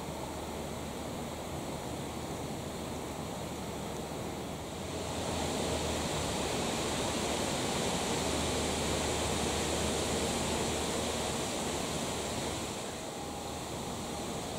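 Steady outdoor background hiss, an even wind-like noise with no distinct events. It gets a little louder about five seconds in.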